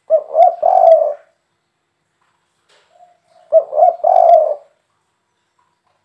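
Spotted dove cooing twice, each call a three-note 'kuk 3' phrase of two short coos and a longer final coo, the second call starting about three and a half seconds after the first.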